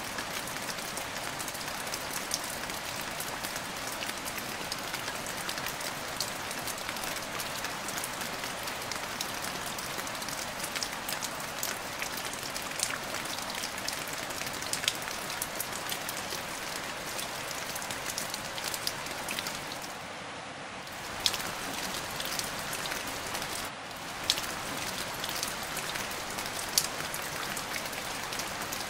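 Rain falling on the canal water: a steady hiss dotted with many sharp ticks of single drops.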